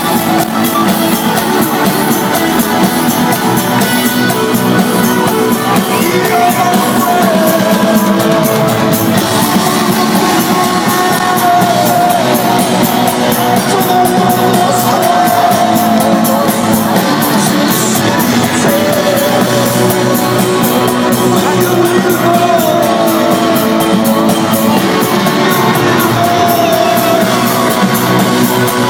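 Rock band playing live, with electric guitar, keyboards and a sung melody over a steady, dense backing, heard from within the audience.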